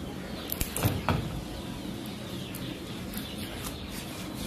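Chickens and small birds calling in the background, with a couple of short knocks about a second in.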